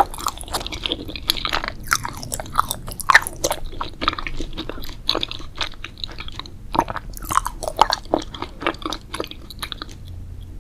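Close-miked chewing of crunchy food, a rapid irregular run of sharp crunches throughout.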